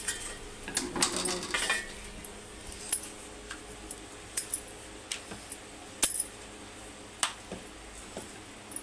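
Wood fire crackling in a mud chulha under a kadhai of hot frying oil: scattered sharp ticks and pops over a steady low hiss.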